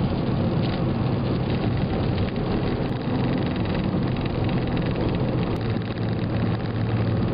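Steady engine and road noise of a car driving on a highway at speed, heard from inside the cabin, with a constant low hum.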